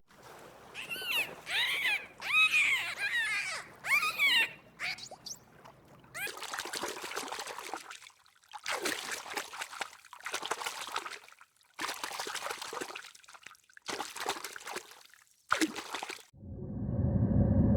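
A run of short, arched, pitched animal calls, followed by repeated bursts of splashing or pouring water.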